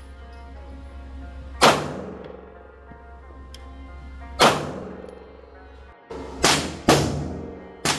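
Five 9mm pistol shots from a Glock 19X, fired one at a time at uneven intervals while its optic is being zeroed, each with a short ring-out. Two of the shots come close together about two-thirds of the way through.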